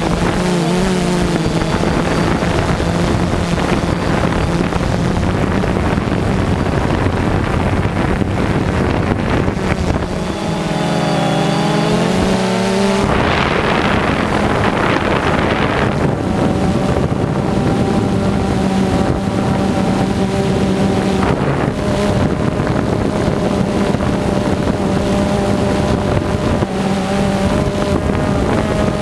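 Quadcopter drone's electric motors and propellers whirring steadily, heard from its onboard camera, with wind buffeting the microphone. The pitch wavers and shifts as the drone manoeuvres, most between about ten and thirteen seconds in.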